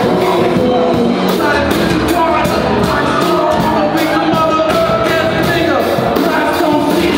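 Live rock band playing loud through a PA in a crowded hall: electric guitar, a drum kit keeping a fast steady beat, and a singing voice.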